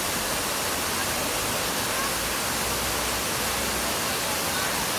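Dozens of vertical fountain jets splashing back down into the basin: a steady, even rush of falling water, heard close up.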